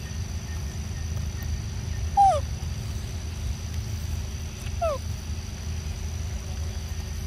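An animal's short whimpering calls, twice, each one falling sharply in pitch, about two and five seconds in, over a steady low rumble.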